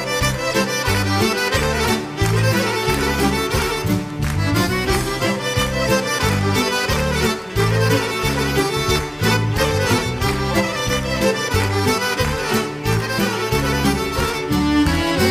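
Instrumental introduction of a Serbian folk song, played by a band with accordion leading over a steady bass and beat.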